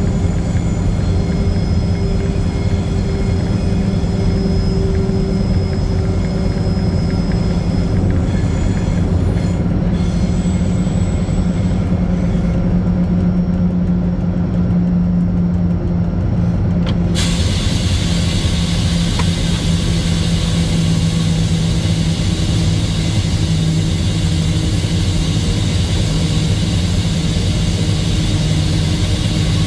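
Diesel-electric banking locomotive running under load, a steady loud engine drone heard from its cab. About seventeen seconds in, a hissing noise comes in suddenly and carries on over the drone.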